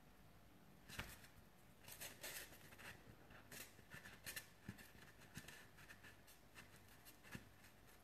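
Near silence broken by faint, scattered clicks and light rustles of hands handling and pressing a soft sugarpaste figure on its wire support, with a small tap about a second in.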